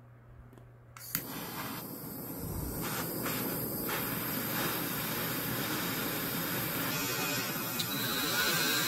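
Handheld butane torch lit with a click about a second in, then hissing steadily as its flame heats a brass threaded insert on a drill bit.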